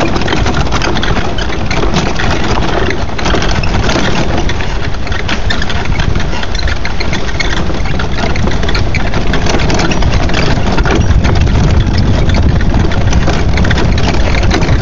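Small go-kart engine running while the kart rolls over a gravel road, with a continuous rough, crackling noise of tyres on gravel.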